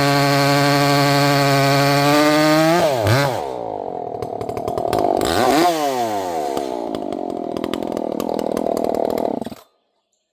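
Ported Echo CS-590 Timberwolf two-stroke chainsaw with a 24-inch bar, screaming at full throttle, then pulled down into a cut: the pitch drops and wavers as the chain bites into a hardwood round, and the saw keeps cutting under load at lower revs. The sound cuts off abruptly near the end.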